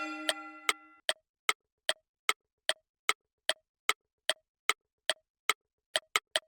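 A ticking sound effect, steady short ticks about two and a half a second that quicken near the end, like a countdown. A bell-like chime fades out in the first second.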